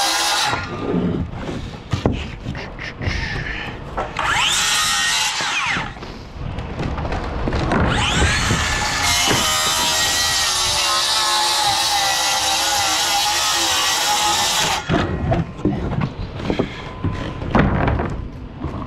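Circular saw cutting OSB roof sheathing in several runs, with rising whines as the blade spins up and a long steady cut of about six seconds in the middle. Near the end, a string of sharp knocks and clatter.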